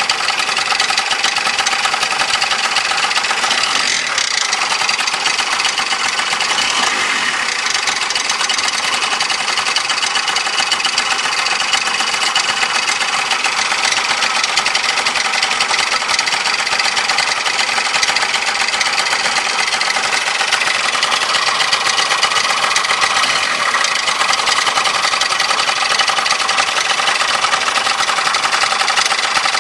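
Honda Gyro scooter engine running steadily with an abnormal mechanical noise, a dense high rattle with steady tones in it, which the owner asks may be ring noise.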